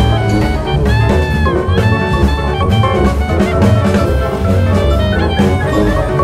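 Background music with a steady drum beat, a bass line and several instruments playing a melody.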